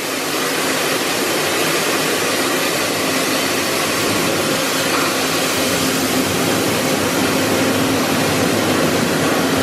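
Touchless automatic car wash (Petit AccuTrac 360) spraying a car with high-pressure jets: a steady, loud hiss of spray on the car and floor, swelling in the first second, with a steady hum underneath.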